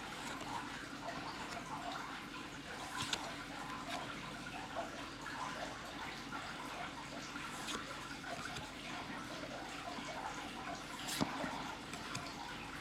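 Foil trading cards being handled and flipped one at a time: soft sliding and rustling with scattered light ticks and a few sharper card flicks, the loudest near the end.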